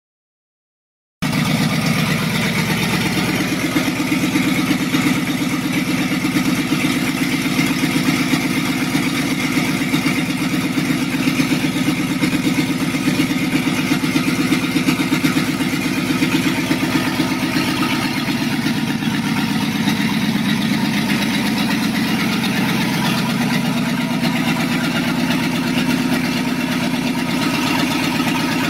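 1951 Chevrolet pickup truck's engine idling steadily, with an even, rapid pulsing exhaust note. It starts about a second in.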